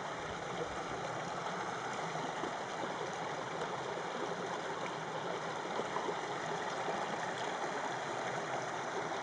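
Shallow creek water flowing steadily over and between rocks.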